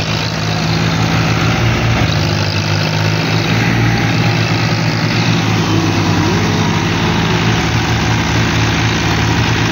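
John Deere 5045 4WD tractor's diesel engine running at a steady speed, bogged in paddy-field mud.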